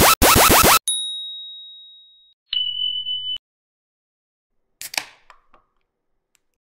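A string of editing sound effects. First a loud stutter of quick falling tones cuts off just under a second in. Then a bell-like ding fades over about a second and a half, followed by a short steady beep and a brief swish near the end.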